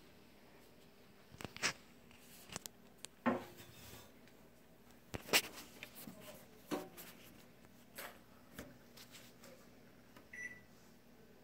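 Scattered light clicks and taps, about six of them a second or two apart, with one short high beep about ten seconds in.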